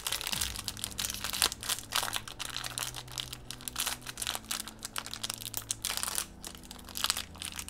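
Shiny foil blind bag crinkling and crackling as it is handled and torn open by hand, in many small rapid crackles.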